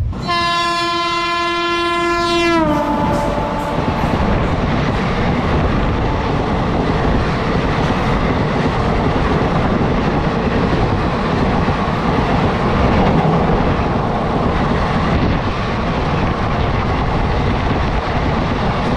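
An oncoming Indian Railways train sounds its locomotive horn, one steady note for about two and a half seconds whose pitch drops as it passes. Then the rumble and clatter of its coaches rushing by close alongside.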